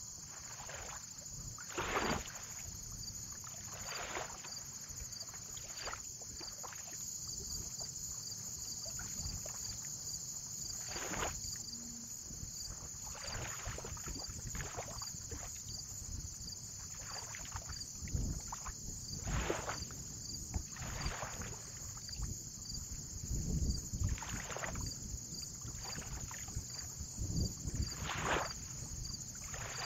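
Small waves lapping and splashing against the water's edge at irregular intervals, one every second or two, over a steady high hiss and a low wind rumble.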